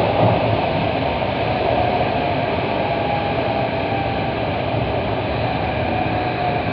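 Running noise of a Kawasaki–CRRC Sifang CT251 metro train heard from inside the front car as it pulls into an underground station platform: a steady rumble and hiss with a faint whine, easing slightly as it slows.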